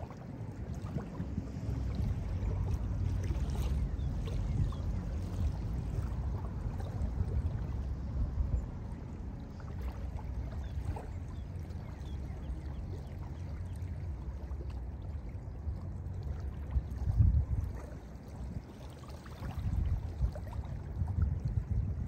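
Small lake waves lapping and washing onto a sandy shore, over a low, uneven rumble of wind on the microphone. The wash swells louder about seventeen seconds in.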